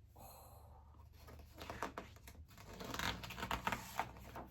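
Paper rustling and crinkling with small clicks, the sound of a picture-book page being handled and turned.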